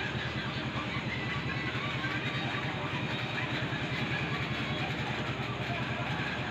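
A small engine running steadily at idle, with an even, fast low throb.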